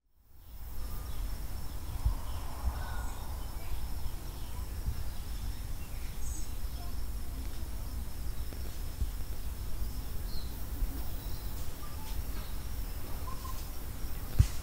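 Native forest ambience: a steady high insect drone with scattered short bird chirps over a constant low rumble, and a single sharp thump near the end.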